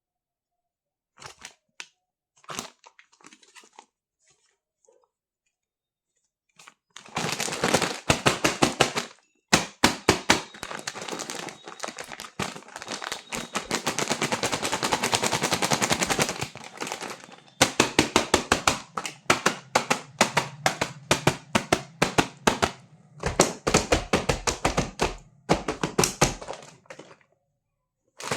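Packaging being torn open and handled, a rapid crackling run of sharp clicks. A few faint clicks come first, and the dense crackling starts about seven seconds in, pausing briefly now and then.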